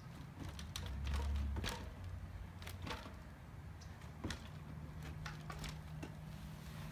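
Mountain bike being hopped and balanced in place: scattered light clicks and knocks from the tyres, drivetrain and freewheel, fairly faint.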